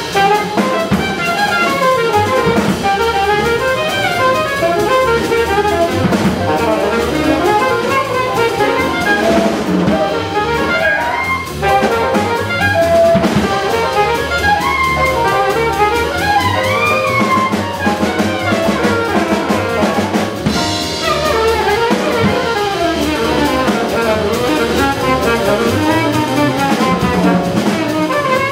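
Live small-group jazz: an alto saxophone soloing in quick, many-note lines over grand piano, upright bass and drum kit.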